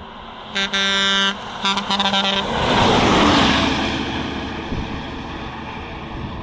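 Bus horn sounding one long steady blast, then a quick string of short toots, followed by the vehicle's engine and tyre noise swelling loud and slowly fading as it passes.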